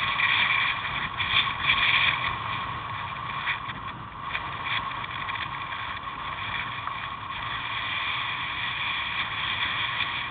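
Wind and road noise rushing past a bicycle helmet-mounted camera as the bike rolls along the road. It is more uneven and gusty in the first couple of seconds, then steadier.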